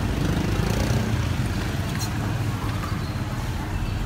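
Motorbike engine running close by in street traffic, a low steady throb, with a sharp click about two seconds in.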